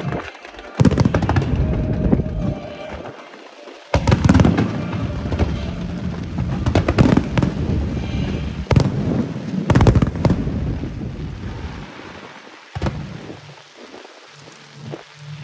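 Aerial fireworks bursting, heard from a few hundred metres away: loud booms about a second in and about four seconds in, then a run of bursts and crackles peaking around nine to ten seconds, each with a long rumbling tail. The display dies down toward the end.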